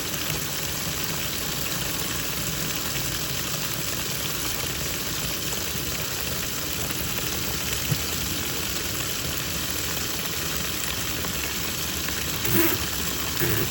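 Twin-tub washing machine running its wash, a steady mix of motor and churning noise, with two brief bumps near the end.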